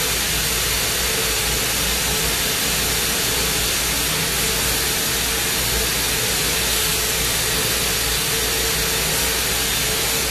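Lampworking bench torch burning with a steady, even hiss.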